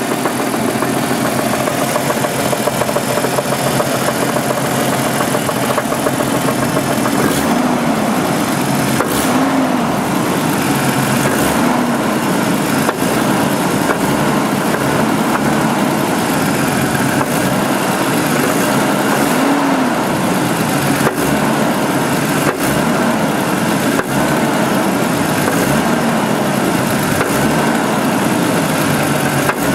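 1988 Jeep Cherokee's 4.0-litre Renix straight-six idling with a knock, which the owner first guesses is piston slap and says is not a rod knock; he also suspects loose flex plate bolts.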